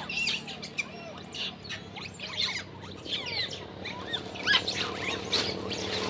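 Long-tailed macaques giving many short, high squeaks and chirps in quick, irregular succession, some gliding up and down in pitch. These are the chirps of small monkeys that hang back from the food because bigger, dominant ones hold it.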